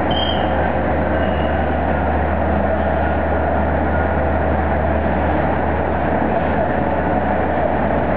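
Steady, dense city traffic noise with a constant low hum, and a brief high tone right at the start.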